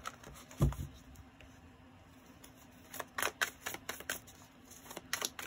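A deck of tarot cards being shuffled by hand: quick runs of crisp card snaps and clicks about three seconds in and again near the end. A single dull thump comes about half a second in.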